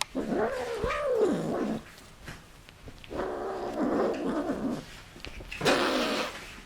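A domestic cat calling: a long call with a wavering pitch at the start, a second, rougher call a few seconds later, and a short hissing burst near the end.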